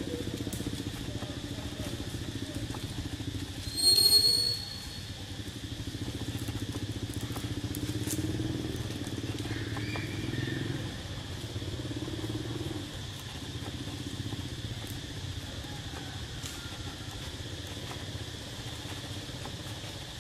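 A steady low motor-like drone under a continuous high insect buzz. About four seconds in, a single short, shrill squeal about half a second long stands out as the loudest sound.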